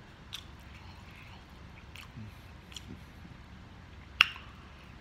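Mouth sounds of a person eating instant ramen noodles: chewing with a few faint wet clicks, then one loud sharp smack about four seconds in as a forkful of noodles goes into the mouth.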